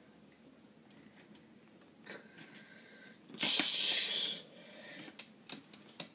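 A loud breathy hiss of a person's breath for about a second, a little past halfway, amid a few faint clicks of plastic Lego pieces being handled.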